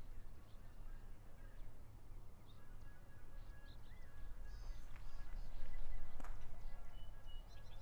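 Quiet outdoor ambience: a steady low rumble with faint, scattered high bird chirps. The rumble swells about five to six and a half seconds in, with one sharp click in the middle of it.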